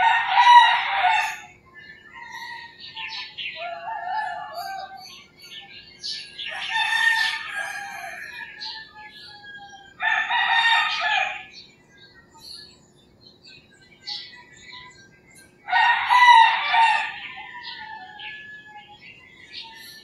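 Roosters crowing: four loud crows, each about a second and a half long, a few seconds apart. Smaller birds chirp in between.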